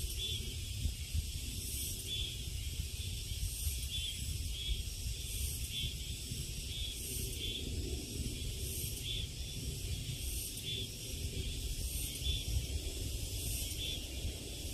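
Cicadas calling in a steady high-pitched chorus that swells in pulses about once a second, over a low rumble.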